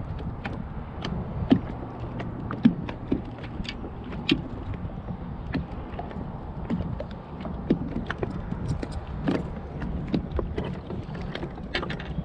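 Scattered small knocks and clicks at uneven intervals from handling a just-caught crappie and fishing rod aboard a boat, over a steady low rumble of wind and water.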